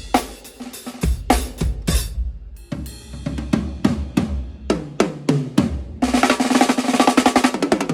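Acoustic drum kit played during a sound check: scattered snare, kick and cymbal hits, then a fill down the toms, falling in pitch. Near the end comes a fast, dense snare roll.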